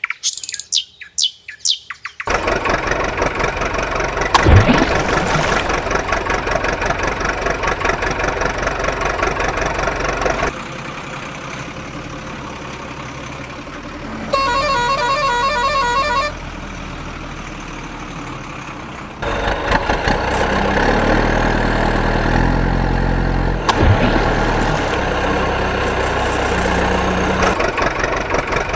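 Birds chirp briefly, then a truck engine runs loudly and steadily. Midway the engine drops quieter and a horn sounds for about two seconds, and in the last third the engine runs loud again with its pitch stepping up and down.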